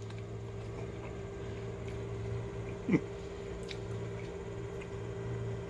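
Steady low hum of room tone, with one short squeak that drops quickly in pitch about three seconds in.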